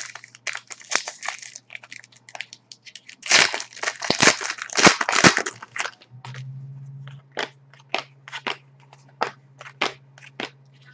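Foil trading-card pack wrapper being crumpled by hand, with crinkling that is loudest for about two seconds near the middle. After it come a string of separate sharp clicks as cards are handled and flicked down one by one.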